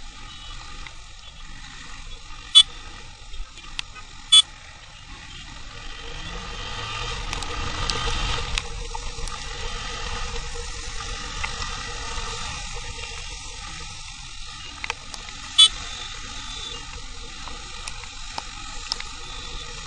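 Motorcycle riding noise on a wet road: steady wind, tyre and engine noise that swells about eight seconds in. Three short, sharp, loud sounds cut through it, two close together early on and one near the end.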